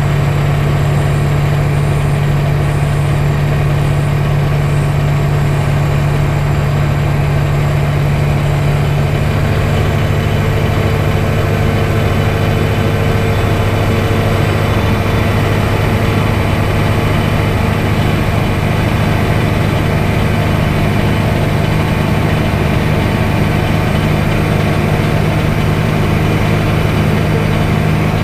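Light aircraft's piston engine and propeller droning steadily, heard from inside the cockpit. The drone shifts to a lower pitch about nine seconds in, then holds steady.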